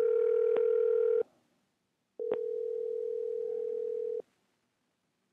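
Ringback tone of an outgoing VoIP phone call, ringing while the call connects. There are two steady tones, the first about a second and a half long and the second about two seconds long, with a short pause between them.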